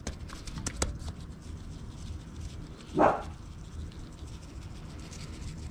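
A few faint soft pats as gloved hands press rub into the skin of a raw chicken, then one short, loud animal call about three seconds in.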